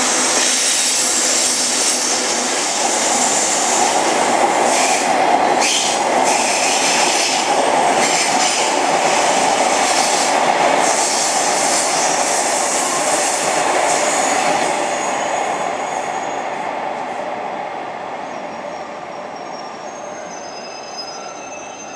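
EF81 electric locomotive and a long string of container wagons passing close by without stopping: a steady loud rumble and rattle of steel wheels on the rails. The sound fades from about 15 seconds in as the train draws away, with thin high squealing tones near the end.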